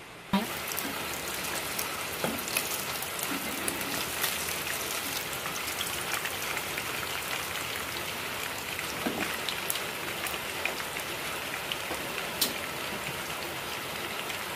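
Fish frying in hot oil: a steady sizzle full of sharp crackles and a few louder pops, cutting in suddenly at the start.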